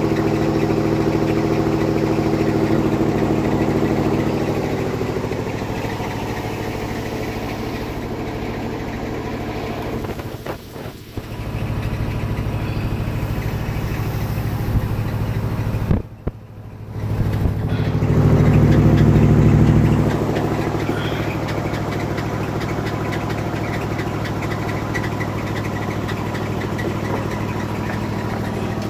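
1963 Ford F-600 truck engine idling steadily, louder for about two seconds around eighteen seconds in, and dropping out briefly twice.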